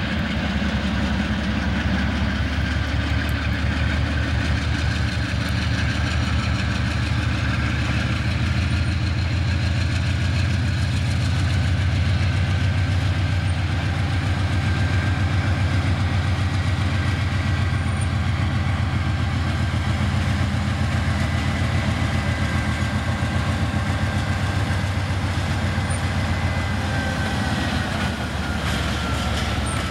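Diesel freight locomotive engine running steadily with a deep rumble. A thin whine rides above it and drops in pitch near the end.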